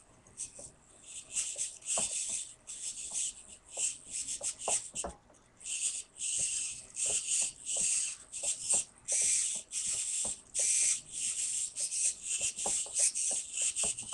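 Small RC servos driving an R2-D2 holoprojector mechanism, whirring in many short high-pitched bursts of varying length as the transmitter stick moves it back and forth. Faint ticks fall between the bursts.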